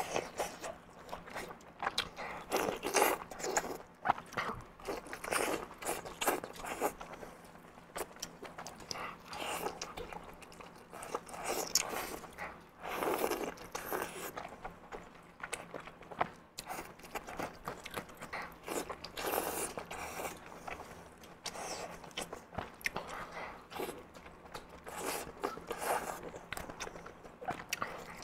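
Close-miked biting and chewing of sweet-and-spicy sauced pork intestine, an irregular run of wet mouth sounds and bites.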